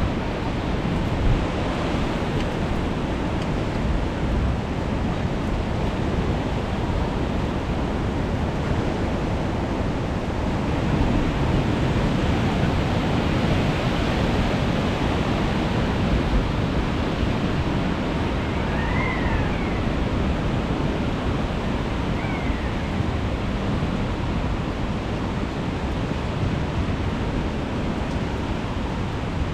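Strong wind rushing over the microphone together with sea surf, a loud, steady roar of noise. Two faint, brief high calls sound about two-thirds of the way in.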